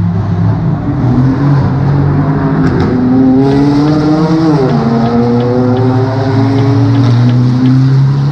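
Racing car engines running hard around the circuit, with a steady engine note. One note drops sharply in pitch about halfway through.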